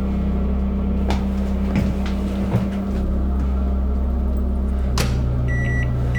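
Microwave oven running with a steady hum and a few clicks; about five seconds in its hum changes pitch with a click, and it starts beeping near the end.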